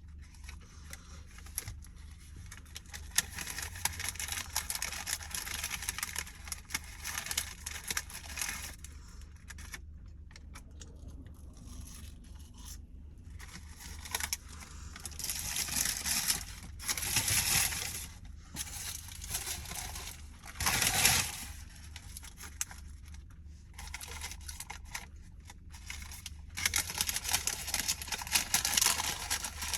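Paper fast-food packaging crinkling and rustling as it is handled close to the microphone, in four bouts of a few seconds each with quieter gaps.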